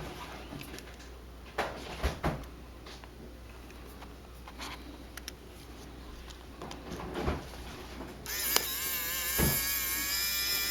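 Light clicks and taps of small tools on a phone, then about eight seconds in a small electric precision screwdriver runs for about three seconds with a wavering whine, backing out a tiny Phillips screw from the iPhone's shield plate.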